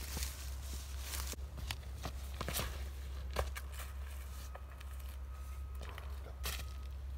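Footsteps scuffing on dry leaves and gravel around a concrete tee pad, with a sharper scuff about three and a half seconds in as a disc golfer plants his foot and throws a drive.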